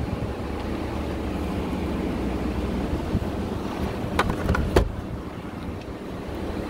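Steady low rumble of a vehicle rolling slowly, with wind noise on the microphone. Two short sharp clicks about four seconds in.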